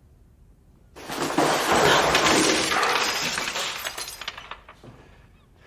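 Glass shattering in a sudden loud crash about a second in, with breaking pieces clinking and fading over the next few seconds.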